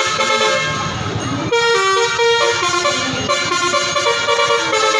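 A bus's basuri 'telolet' musical horn playing a tune of multi-tone notes: quick repeated notes, then longer held notes from about a second and a half in.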